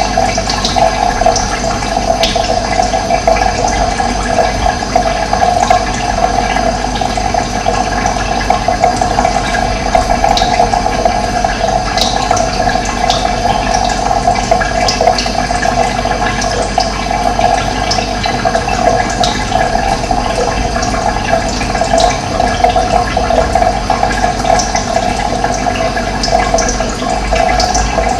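Steady rush of running water, with brief high bird chirps scattered over it.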